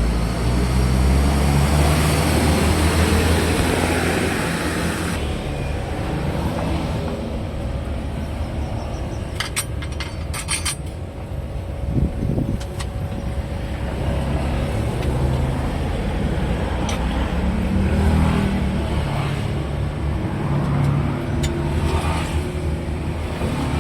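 Motor vehicle engines running: a steady low rumble, with a broad hiss that cuts off suddenly about five seconds in and a few sharp clicks around ten seconds.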